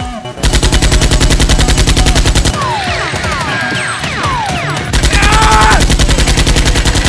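Rapid-fire machine-gun sound effect in two long bursts, the first starting about half a second in and the second about five seconds in, with quick falling whistling tones in between.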